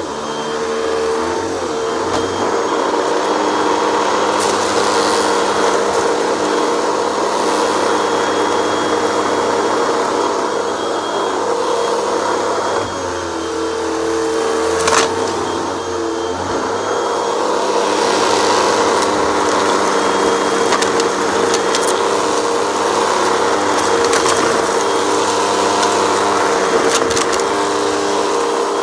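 Hoover WindTunnel upright vacuum cleaner running steadily on carpet, its motor humming with a constant hiss, while the brushroll chews through a big pile of fluff with scattered crackles and sharp ticks as debris is pulled in.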